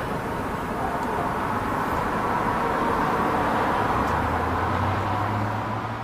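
Whelen 2910 rotating electronic warning siren sounding its test tone, which swells to its loudest around the middle and then fades as the speaker column turns. A low engine hum comes in about two-thirds of the way through.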